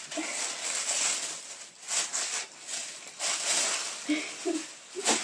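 Tissue paper rustling and crinkling as it is pulled out of a present and unfolded by hand, in irregular surges.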